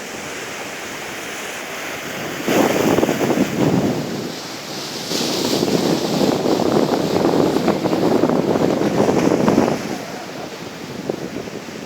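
Sea surf washing on the shore with strong wind blowing across the microphone, swelling loud about two and a half seconds in and again for several seconds from about five seconds in.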